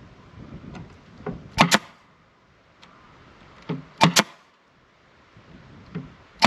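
Hammer driving nails into a wooden box, in three bursts about two seconds apart. Each burst is a lighter tap followed by two hard strikes.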